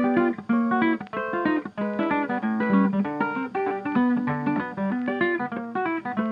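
Acoustic guitar music: a fast, continuous run of plucked notes that starts suddenly.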